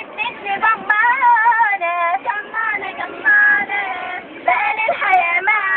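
A girl singing a nasheed solo, a high voice with a wavering, ornamented melody.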